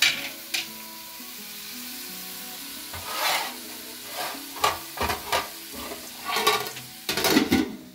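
Tomatoes and spices cooking in a pot, with a handful of short bursts of sizzling and scraping over soft background music.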